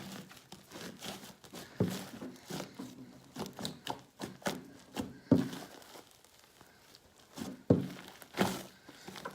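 Large batch of fluffy slime being kneaded and pulled by hand: irregular sticky squelches, crackles and tearing, with sharper slaps about two, five and eight seconds in. Typical of a slime she thinks is overactivated, one that tears instead of stretching and still clings to the hands.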